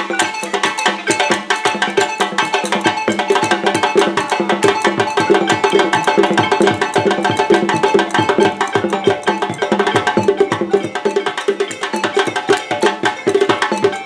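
West African percussion ensemble playing a fast, busy rhythm: a balafon's wooden keys struck in quick runs over djembe hand drums.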